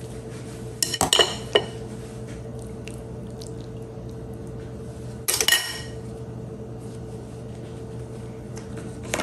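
Stainless serving utensils (a squeeze-release scoop and a knife) clinking against a glass mixing bowl: a few light clicks about a second in, then a louder ringing clink about five seconds in. A steady low hum runs underneath.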